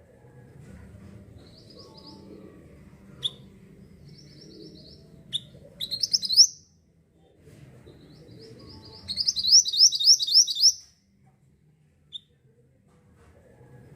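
Mantenan songbird singing: single sharp high chirps and two runs of rapid, upward-sweeping high notes, the second run the loudest, over a faint low background rumble.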